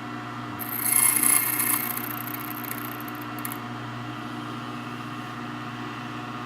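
Key code-cutting machine running with a steady motor hum while its cutter cuts the fifth cut, to depth one, into a Schlage key blank. A high-pitched grinding shriek of the cutter biting the metal starts about half a second in and fades out after about three seconds, leaving the motor running on its own.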